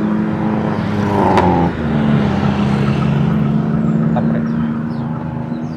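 Road traffic: car and motorcycle engines running and passing, a steady engine drone with a brief higher-pitched tone about a second in.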